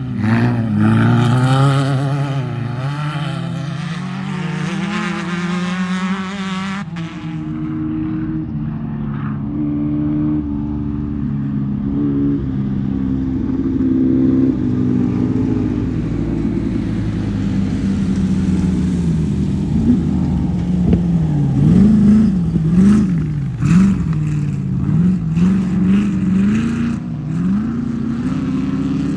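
Off-road race vehicle engines running and revving, the pitch swinging up and down with the throttle. The high end drops away suddenly about seven seconds in, and an engine grows louder again through the second half, with sharp clicks and rattles over it.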